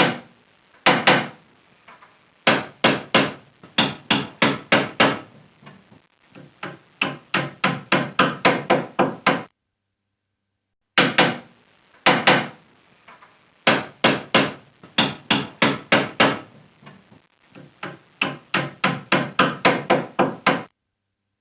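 Hammer striking repeatedly: sharp, ringing blows, a few spaced ones and then fast runs of about three to four a second. A pause of about a second and a half comes midway, then the same pattern of blows starts again.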